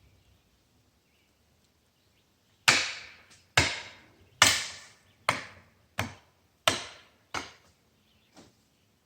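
Eight hard blows struck into wood, starting about two and a half seconds in and coming roughly one every three-quarters of a second. Each blow has a short ring, and the last one is faint.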